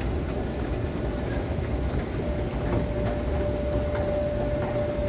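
Kone escalator running: a steady low rumble of the moving steps and drive, with faint ticks, heard from on the steps. A steady hum joins about two seconds in.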